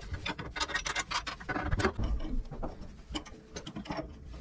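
Irregular small metal clicks, taps and scraping from an adjustable wrench and steering-linkage fittings being handled.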